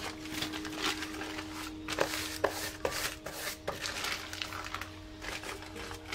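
A crumpled plastic wrapper crinkling and crackling as it is pressed onto wet spray paint on the canvas and lifted off to texture it, with several sharp crackles in the middle, over a faint sustained music note.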